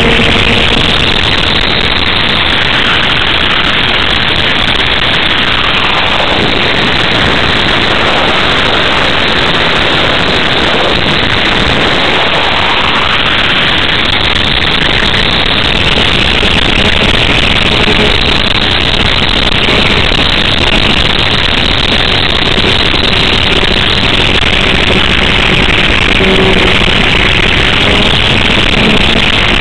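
Multiplex EasyStar RC model plane in flight, heard from on board: a loud, steady rush of airflow mixed with the buzz of its electric pusher motor and propeller, with slow sweeping shifts in tone as it banks and turns.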